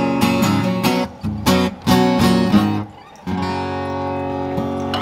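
Acoustic guitar strummed in a steady rhythm. A little before three seconds in the strumming drops out briefly, then a chord is struck and left to ring.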